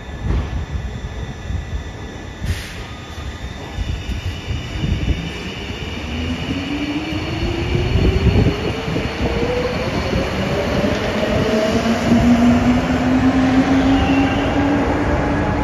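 Translohr STE6 rubber-tyred tram pulling away from a tunnel station. A high steady whine sets in a few seconds in, then from about six seconds in two motor tones rise steadily in pitch as it accelerates away.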